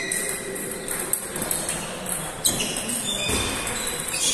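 Table tennis ball clicking off the rackets and the table in a rally, a few sharp ticks spaced about a second or more apart, over the chatter and ball noise of other tables in a large hall.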